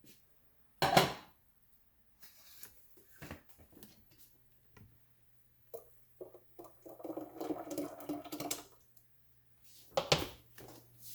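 Kitchen handling sounds: a sharp knock about a second in and another near the end, with scattered light clicks and clatter. A low steady hum sets in after about two seconds, and about seven seconds in a pitched whir runs for roughly two seconds.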